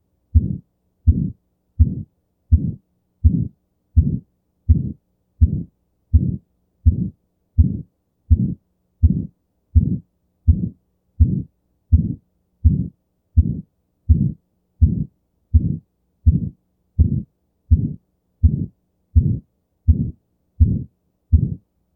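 Stethoscope recording of a heart with aortic stenosis: heartbeats about 80 a minute, each with a systolic murmur, the crescendo-decrescendo ejection murmur typical of a narrowed aortic valve.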